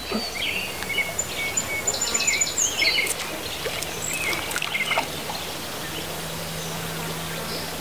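Songbirds chirping and trilling, busiest in the first few seconds, over a steady outdoor hiss, with a faint steady low hum coming in about halfway through.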